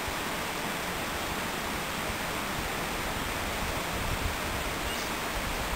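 Steady outdoor background noise: an even rushing hiss with no distinct calls or events.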